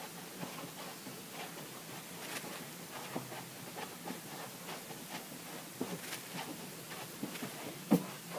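Soft, irregular footfalls and shuffles of a child spinning in place on a carpeted floor, with one sharper knock near the end.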